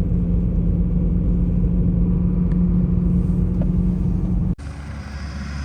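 BMW E92 M3's V8 cruising on a snowy road, heard as a steady engine drone with tyre and road noise. About four and a half seconds in it cuts off abruptly, and a quieter, different steady rumble with hiss follows.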